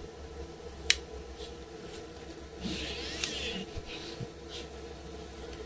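Handling noise from the parts of a scooter hub-motor kit: a single sharp click about a second in and a brief rub or rustle of plastic near the middle, over a steady low hum.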